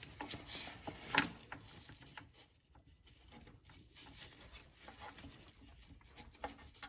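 Faint rubbing and light clicks of a rubber drain hose being worked onto an engine block drain spigot by a gloved hand, with one sharper click about a second in.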